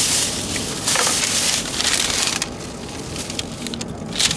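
Rustling and crackling handling noise in several bursts, with a few sharp clicks in the second half.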